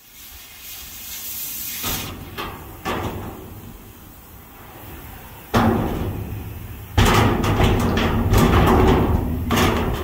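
Torch-cut corrugated steel panel of a shipping container being struck to knock it loose: a few metal knocks, then from about halfway through loud, repeated banging and rattling of the sheet steel.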